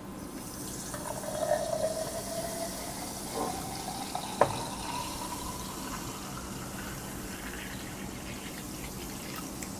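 Carbonated soda poured from a plastic bottle into a glass beer mug: a steady splashing stream with a fizzing hiss, its pitch rising as the mug fills. A single sharp click about four and a half seconds in.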